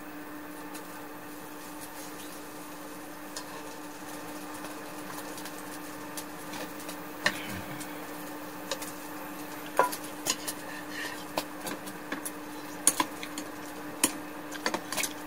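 Scattered light clicks and clinks of chopsticks and utensils against dishes, over a steady low hum.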